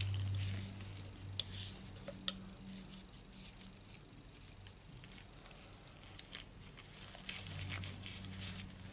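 Palette knife scraping and smoothing thick paint on a palette, faint, with a few small clicks, over a low steady hum that is louder at the start and again near the end.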